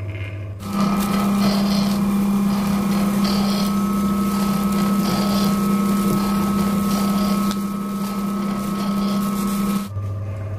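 Motor-driven wooden ghani oil mill running steadily while it crushes copra for cooking oil: a loud, even machine hum with a higher steady whine. It starts abruptly under a second in and cuts off abruptly near the end.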